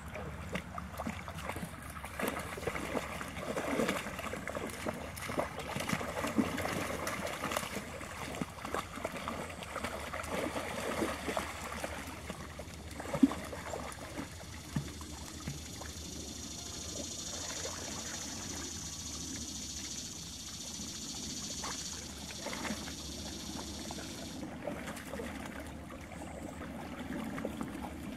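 Labrador and her puppies splashing and paddling through shallow water: irregular sloshing, busiest in the first half, with one sharp knock about halfway through.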